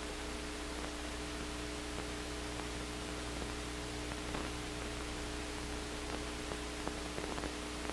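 Steady hiss with a low electrical hum, the background noise of an old film soundtrack, with a few faint clicks in the second half.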